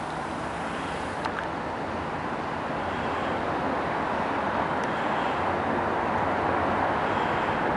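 Distant vehicle noise outdoors: a steady rushing that grows slowly louder.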